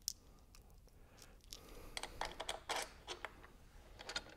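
Faint, irregular clicks and light taps of a metal mounting bracket and its spacers being handled and fitted against a motorcycle's rear frame, growing more frequent after the first second or so.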